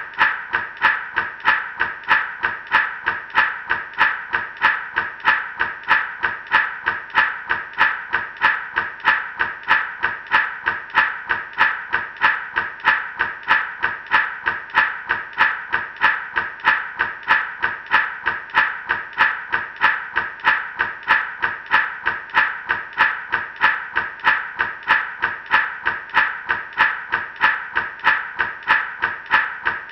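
Gourd rattle shaken in a steady, even rhythm, about two to three shakes a second, each shake a short rattling stroke.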